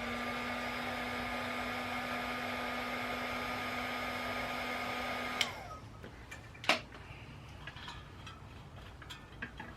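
Heat gun blowing steadily, with a constant motor whine, while the tight rear sprocket bolts are heated to loosen them. It is switched off about five and a half seconds in and its whine winds down, followed by a sharp click.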